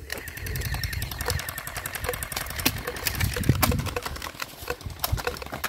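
Gel blasters firing in rapid bursts: fast runs of light clicking shots, with sharper single cracks scattered throughout.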